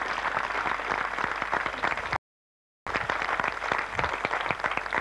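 Audience applauding, a dense patter of many hands clapping. A little after two seconds in, the sound cuts out completely for just over half a second, then the applause resumes.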